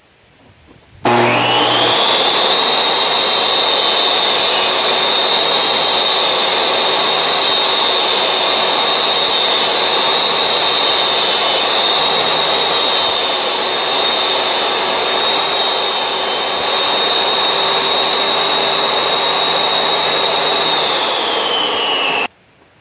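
Portable jobsite table saw starting up with a rising whine, running at speed while a wooden board is ripped along the fence, then beginning to spin down before the sound cuts off abruptly.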